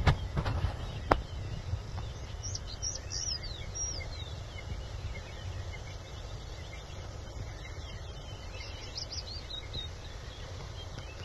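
Outdoor bush ambience: two bursts of short, high, downward-sliding bird chirps over a steady low rumble, with two sharp clicks in the first second or so.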